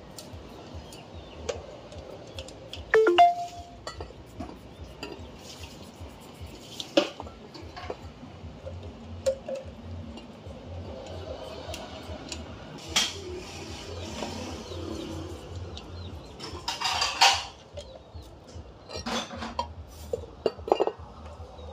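Steel brake parts clinking and knocking as a caliper bracket is scrubbed with a toothbrush and handled among the brake drums, with a short metallic ring about three seconds in and a longer scraping rasp near the end.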